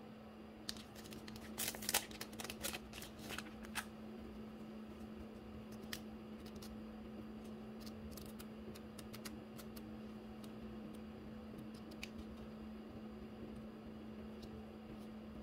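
Thin plastic bag crinkling as it is opened and a pack of paper film-strip stickers is pulled out: a cluster of crackles in the first few seconds, then scattered soft ticks as the paper strips are fanned through. A steady low hum runs underneath.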